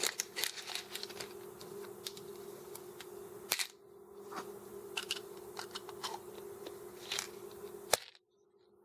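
M&M's candies poured into a plastic candy dispenser: a scatter of irregular clicks and taps as the pieces drop in, over a steady low hum. The sound cuts off abruptly near the end.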